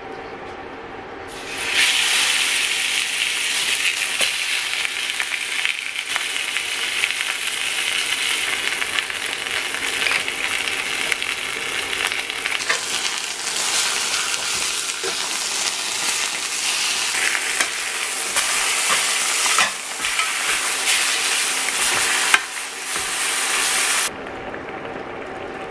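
Baby back ribs sizzling loudly as they sear in hot oil in a cast iron skillet. The sizzle starts abruptly about a second and a half in and cuts off suddenly near the end.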